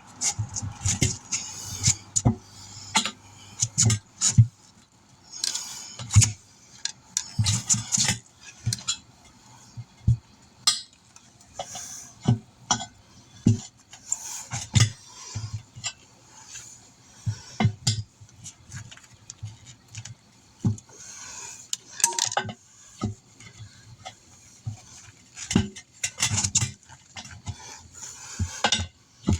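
Steel tire spoons clanking and scraping against a wheel rim as a tire bead is levered on by hand: irregular metallic clinks and short scrapes, several a second at times.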